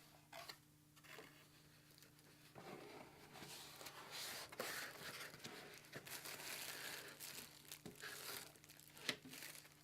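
Paper and plastic packaging rustling and crinkling as the contents are handled and lifted out of a lens box, with a few light clicks and knocks.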